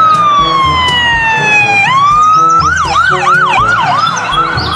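Police car siren: a long falling wail that swoops back up about two seconds in, then switches to a fast yelp of quick rising-and-falling sweeps, about three a second.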